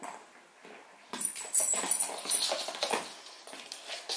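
A dog moving about and scrabbling: a quick, irregular run of clicks and rustles starting about a second in.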